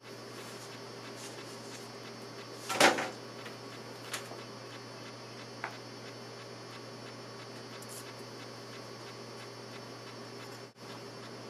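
A wooden adjustable pottery mold and a stoneware clay slab being handled on a work table: one loud knock about three seconds in, then a few faint ticks over a steady hiss as the slab is pressed and smoothed by hand.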